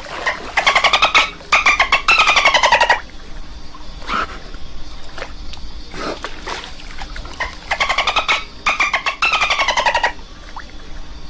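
Dolphin chattering: rapid trains of squeaky clicking pulses, about a dozen a second, falling slightly in pitch. It comes as two matching volleys several seconds apart, a sound effect played twice.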